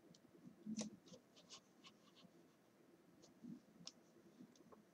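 Near silence with a few faint clicks and light scraping from a Corsair Harpoon RGB mouse being moved and clicked on the desk, the loudest click about a second in.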